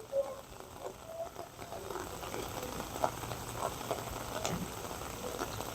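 Faint bubbling and pattering of water, with scattered small clicks.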